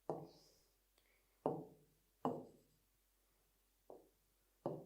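A handful of short, sharp knocks or taps at uneven intervals, five in all, each dying away quickly.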